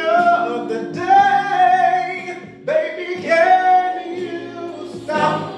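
Man singing over a backing track, holding long notes in several phrases, with short breaks between them.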